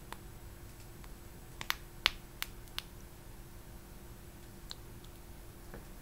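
Fingernails squeezing the gel pimples of a silicone pimple-popping toy, making a quick run of about five sharp little clicks and pops around two seconds in as a pimple bursts, then one fainter click later on.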